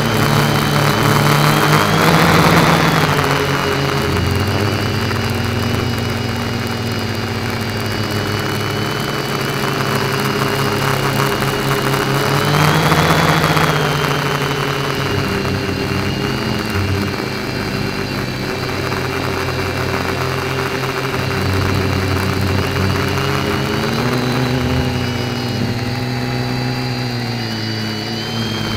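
Quadcopter's electric motors and propellers whining in flight, heard close from the onboard camera, several tones rising and falling together with the throttle. Louder surges come about two seconds in and again around thirteen seconds, and the pitch shifts again near the end.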